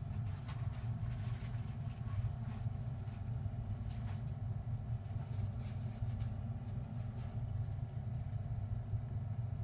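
A steady low rumble, with a few faint rustles and scratches.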